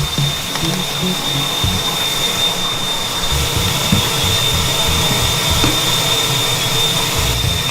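Shower running: a steady rush of spraying water.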